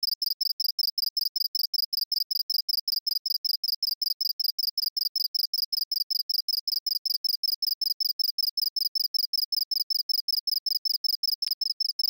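Synthesized house cricket chirp from the Absynth 5 software synthesizer: a fast, even train of short, high-pitched chirp syllables built from the first four harmonics and shaped by a custom ramp envelope.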